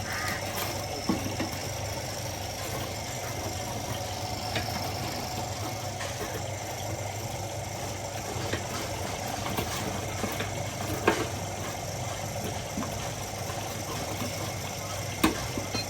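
An engine running steadily at idle, with a few sharp clicks or knocks scattered through it.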